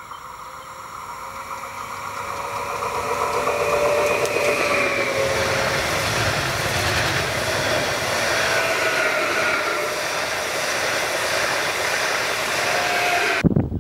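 Stadler FLIRT electric multiple unit passing at speed: it grows louder as it approaches, then holds a steady rush of wheels on rails under a faint traction-motor whine. The sound cuts off abruptly near the end.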